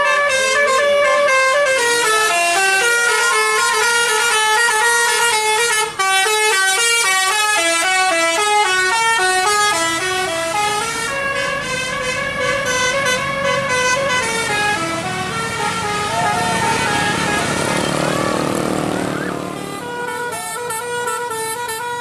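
Basuri telolet multi-tone bus horns playing melodic tunes, one bus after another, as a run of quick stepped notes. Near the end the horn tune blends with the rising rush of a passing bus.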